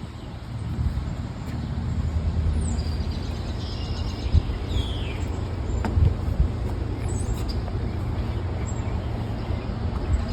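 Outdoor ambience: a steady low rumble with short bird chirps, several of them sliding downward in pitch, scattered through it.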